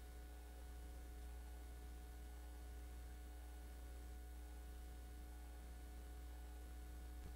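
Quiet room tone with a steady low electrical hum and a few faint steady tones above it, no speech.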